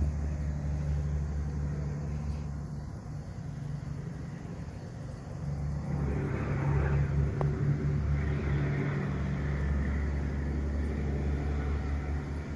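Steady low mechanical hum, like an engine or motor running, growing louder and fuller for a few seconds about six seconds in.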